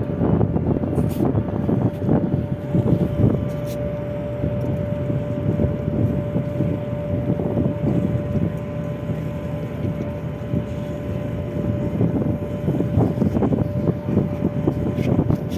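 An engine running steadily with a constant whine, under heavy wind buffeting on the microphone.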